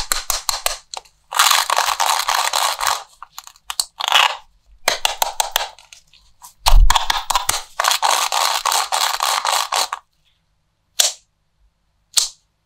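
Plastic watermelon toy ball handled and pulled apart by gloved hands: runs of rapid crackling and clicking, with a dull thump about seven seconds in and two short clicks near the end.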